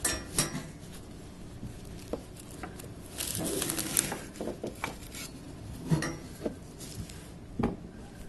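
Condenser coil brush being worked in under a refrigerator: scattered light metal knocks and clinks, with a longer brushing scrape about three seconds in, as dust and pet hair are cleared from the condenser coils.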